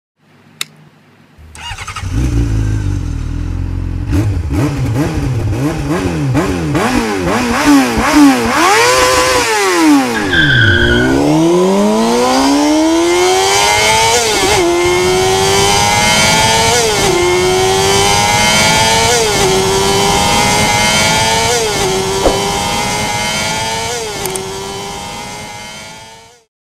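Intro sound effect of a high-revving engine, blipped up and down several times. It then pulls away and accelerates through the gears, its pitch climbing and dropping back at each upshift about every two seconds, and fades out near the end.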